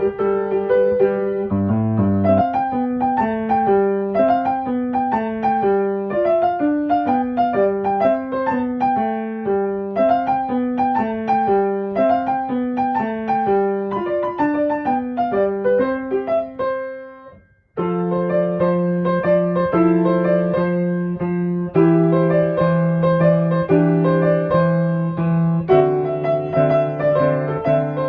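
Background piano music: a quick run of single notes that fades out briefly about 17 seconds in, then resumes with fuller held chords.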